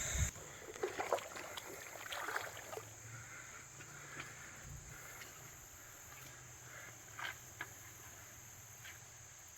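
Faint sloshing and small splashes of shallow creek water, with a few soft clicks scattered through, over a faint high insect drone.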